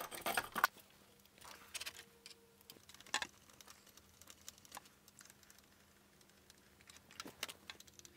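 Faint, scattered clicks and taps of a screwdriver working on 3D-printed plastic parts of a robot's neck gimbal, with a short clatter at the start and a small cluster of clicks near the end.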